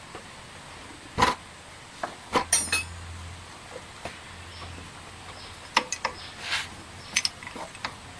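Scattered sharp metallic clicks and clinks of the starter motor's cable and metal parts being handled as the starter motor is unbolted and worked out of a scooter engine, the loudest about a second in.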